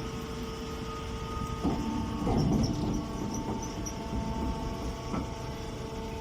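Machinery running: a steady mechanical hum with a low rumble and several held tones, and a few short knocks.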